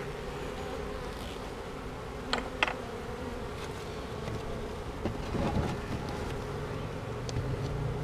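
A cluster of honey bees from a newly hived swarm buzzing steadily at the hive entrance, with single bees flying close past now and then. Two short sharp high sounds come about two and a half seconds in.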